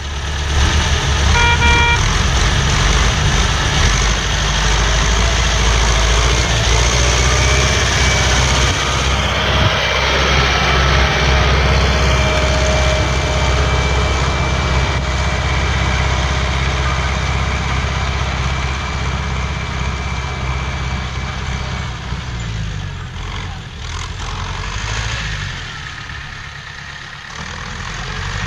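T-40AM tractor's air-cooled diesel engine running steadily as it pulls a potato hiller along the rows, growing gradually quieter as the tractor moves away. A short toot sounds about a second and a half in.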